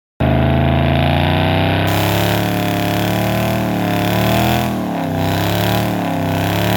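Dodge Charger's HEMI V8 held at high, steady revs during a burnout, spinning the rear tyres into smoke; the revs dip briefly twice near the end.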